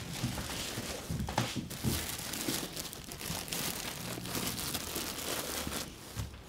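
A bag crinkling and rustling as it is handled and hung on a door handle, with a few light knocks mixed in.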